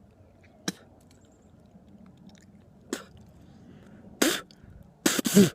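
A person coughing after swallowing a dog treat: one harsh cough about four seconds in, then two more close together near the end. Two short clicks come earlier.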